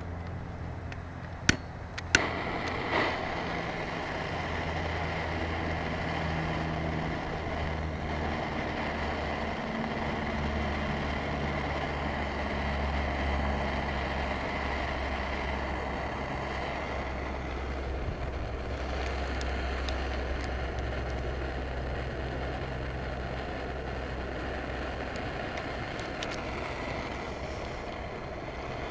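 A motor vehicle's engine running steadily with a low hum whose pitch shifts slightly now and then. Two sharp clicks come about a second and a half and two seconds in.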